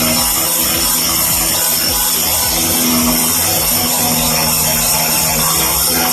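Handheld cutter converted for wet cutting, running steadily as it cuts through tile or granite with water fed onto the blade.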